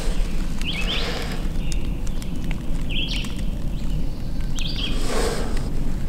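Footsteps and gear rustling through dry leaf litter, with a songbird repeating a short chirping phrase three times, about every two seconds.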